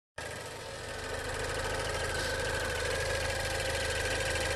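2016 Range Rover Evoque's four-cylinder engine idling steadily, heard from under the open hood, with a light clicking or ticking in the running sound. It does not sound scary, but it cannot be said for sure to be normal; such ticking might be normal on some four-cylinder engines.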